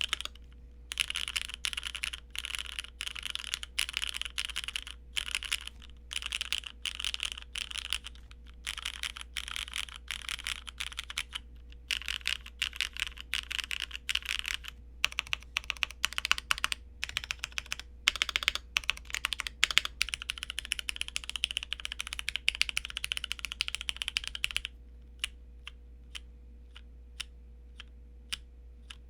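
Fast typing on a Keychron Q1 mechanical keyboard with Cherry MX Black linear switches, a stock plate and a Taobao tuning kit, a dense run of key clacks in bursts with short pauses. Near the end the typing gives way to slow single key clicks, about two or three a second.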